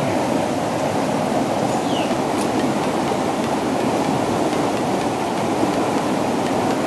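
Steady rushing of a fast river current over rapids below a dam.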